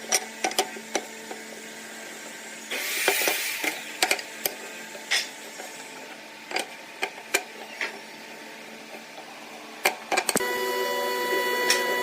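Woodworking bench sounds: scattered sharp taps and knocks on wood, with a short scraping burst about three seconds in. From about ten seconds a steady hum of several tones grows louder.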